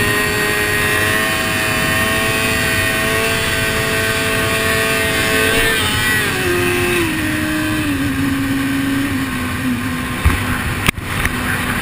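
Small motorcycle engine running at highway speed under a haze of wind noise; its note holds steady, then drops in several steps about six to nine seconds in as the engine speed falls. A brief cut-out in the sound near the end.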